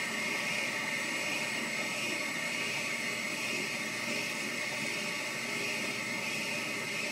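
Wabeco benchtop lathe running steadily while its turning tool cuts a white acetal (POM) rod, peeling off a continuous curling chip. The sound is an even machine noise with a high hiss-like band.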